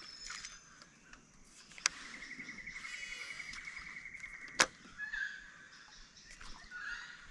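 Baitcast reel casting: a click as the spool is released, then the spool's electronic (DC) brake whining steadily for about two and a half seconds while line pays out, cut off by a sharp click as the reel is engaged. Birds chirp briefly around it.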